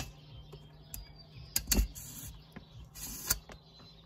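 Old coaxial antenna cable being cut and worked out of an aluminium mast tube: a few sharp clicks and knocks and two short scraping rasps, over a faint steady low hum.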